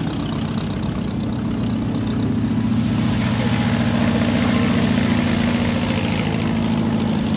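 Car engine idling with a low, even rumble that grows a little louder about three seconds in.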